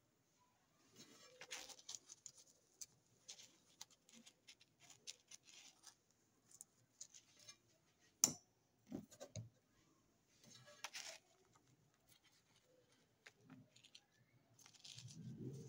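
Faint, scattered clicks and rustles of paint tubes being handled and squeezed onto paper, with one sharper click about eight seconds in.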